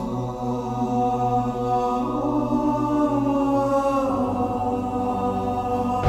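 Slow, droning background music of held chords over a steady low note, the chord shifting about two seconds in and again about four seconds in.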